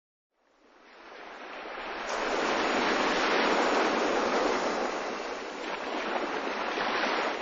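Sea surf washing on a beach, fading in from silence about half a second in, then a steady rush that gently swells and eases.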